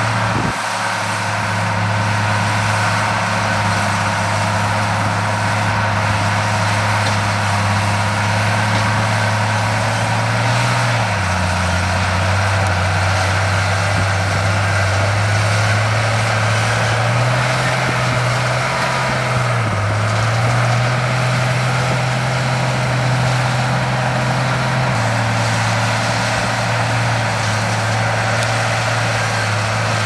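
Heavy diesel engine of earthmoving machinery running steadily. Its pitch steps up and down every few seconds as the revs change.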